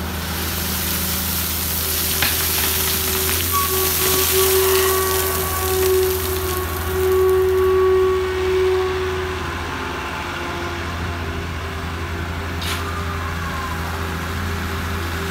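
Caterpillar 322B L hydraulic excavator working coal: its engine runs with a steady low hum, and a loose hiss and rattle of coal grains is strongest in the first half. A steady hydraulic whine rises over the engine for several seconds in the middle as the loaded bucket is lifted and swung, with a couple of brief knocks.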